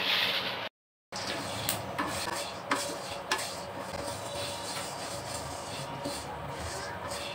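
Raw peanuts stirred in a metal wok with a wooden spatula: a steady scraping rattle of nuts sliding over the pan, with scattered sharp clicks of the spatula against the metal. It opens with a short hiss that cuts off before the stirring starts.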